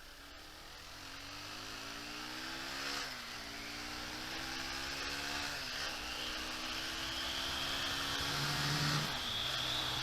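Honda CBR150R's single-cylinder engine accelerating through the gears: its pitch climbs, drops at an upshift about three seconds in and again about six seconds in, then climbs again, getting louder overall.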